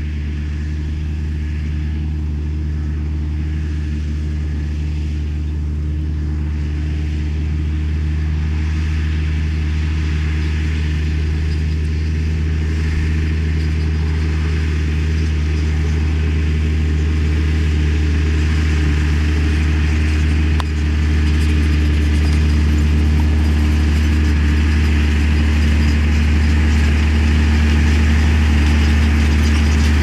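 New Holland tractor's diesel engine running steadily under load as it pulls a Kverneland plough through the soil, growing gradually louder as the tractor draws near.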